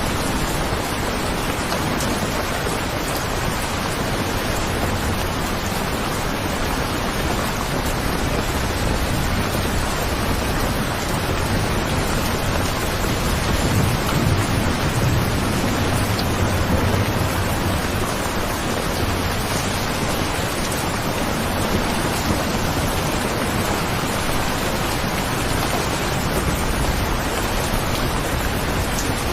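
Steady, heavy rain. A low rumble swells about halfway through and fades a few seconds later.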